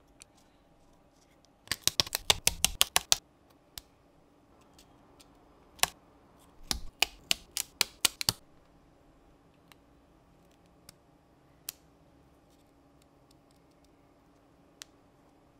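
Small laser-cut plywood model parts clicking and snapping between the fingers. There is a fast run of about ten sharp clicks about two seconds in, and another run around seven to eight seconds in as a part is pushed out of its plywood sheet, then a few single clicks over a faint steady hum.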